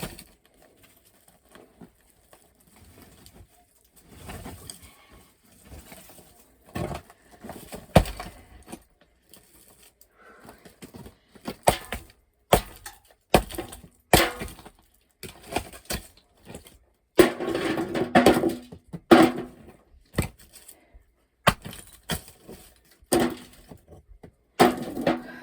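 Lumps of coal being dug out and broken loose: an irregular series of sharp knocks and clatters, busiest in the middle stretch.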